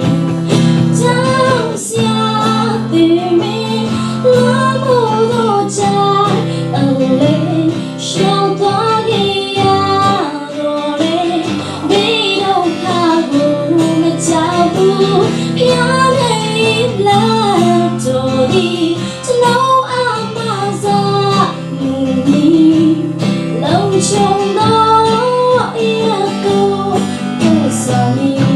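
A woman singing a solo into a microphone, accompanied by an acoustic guitar.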